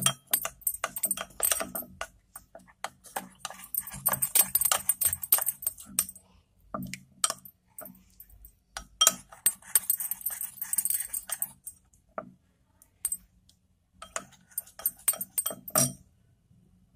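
Steel spoon stirring a thick ketchup-and-cornflour sauce in a small ceramic bowl: quick clinks and scrapes of metal on ceramic. It pauses about twelve seconds in, then clinks a few more times.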